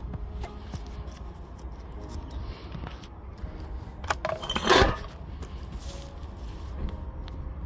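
Faint clicks and scratches over a steady low rumble, with one louder rasping scrape a little past halfway.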